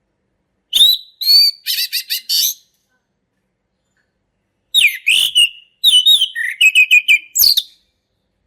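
Male orange-headed thrush singing: two loud song phrases of clear whistled notes mixed with quick rippling notes, the first about a second in and the second after a pause of about two seconds.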